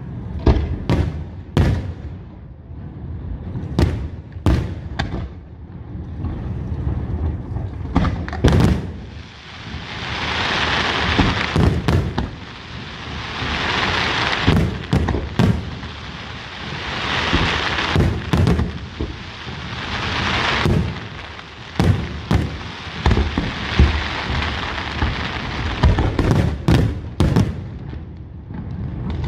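Aerial fireworks display: a rapid series of sharp bangs from bursting shells over a continuous low rumble. Through the middle come several seconds-long swells of dense hiss between the bangs.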